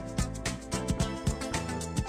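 Background music with a steady driving beat.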